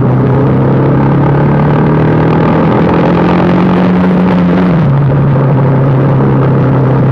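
Motorcycle engine running while riding, loud and steady, with wind noise on the helmet-mounted phone's microphone. The engine note climbs slowly and drops back a little before five seconds in.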